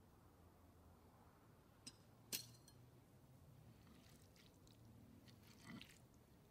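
Cutlery clinking against a plate over near silence: a small click a little before two seconds in and a sharper, louder clink just after it, then faint scrapes and taps.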